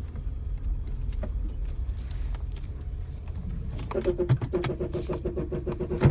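Brake noise on a 2007 Toyota Highlander Hybrid: over the car's low steady rumble, a rapidly pulsing groan at a steady pitch starts about three and a half seconds in while the vehicle is reversing, ending with a short knock.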